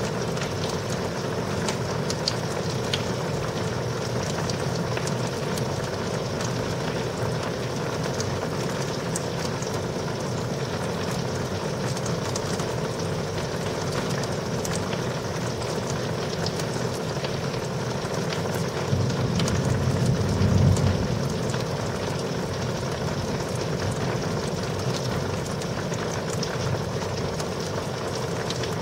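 Heavy rain falling steadily, with scattered drops ticking close by. A low rumble of thunder swells and fades about twenty seconds in.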